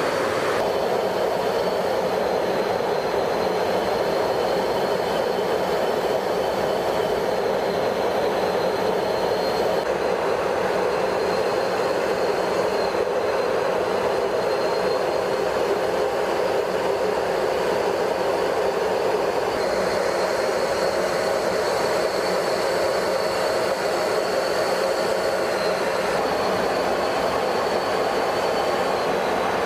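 Steady cabin noise inside a B-52 bomber's cockpit: an even rushing drone of engines and airflow, with a faint thin high whine over it.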